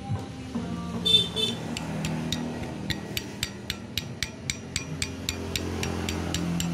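Yamaha Alfa two-stroke crankshaft with its connecting rod rocked by hand, the loose rod clicking sharply against the crank, about four clicks a second from about three seconds in. The play is a worn connecting rod, the source of the engine's knocking.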